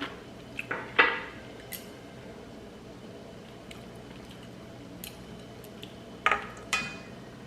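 A few short knocks and clinks of dishes and utensils being handled, the loudest about a second in and two more near the end, with faint small ticks between.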